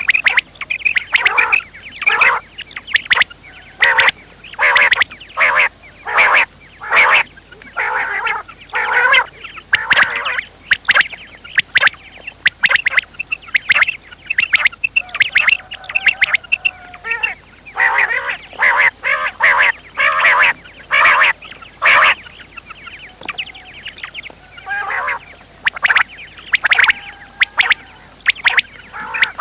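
Waterfowl calling: a long run of loud, harsh calls, often several a second, broken by a few short lulls.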